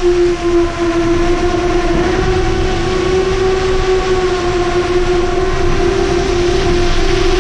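Brushless motors and tri-blade props of a 7-inch long-range FPV quadcopter running at a near-steady throttle, a continuous hum at one pitch with overtones, over a low rush of wind.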